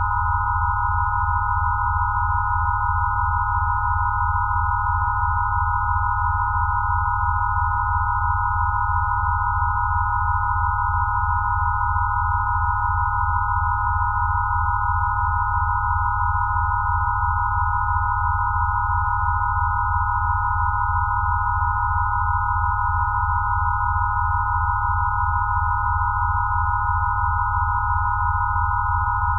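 Synthesized Rife-style healing-frequency tones: several steady, high-pitched pure tones sounding together over a low hum that pulses quickly and evenly, unchanging throughout.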